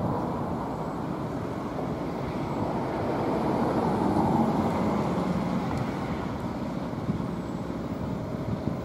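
Road traffic: a car driving past on the road beside the railway, its tyre and engine noise swelling to a peak about four seconds in and then fading.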